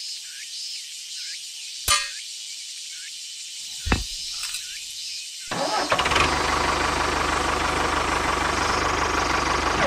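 A sharp metallic click and, two seconds later, a low knock as a pin is set into a miniature tractor's trailer hitch. From about halfway the miniature DIY tractor's motor starts running, a steady low rhythmic engine-like drone.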